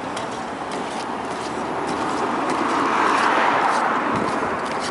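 A car driving past, its noise swelling to a peak about three seconds in and then fading.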